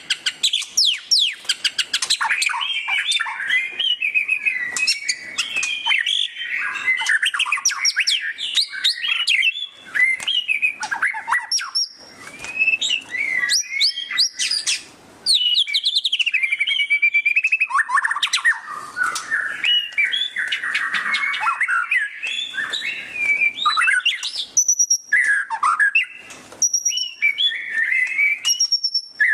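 White-rumped shama (murai batu) singing loudly in the rapid 'ngeriwik' style: a fast, varied run of chattering and sweeping notes with brief pauses, and high clear whistled notes near the end.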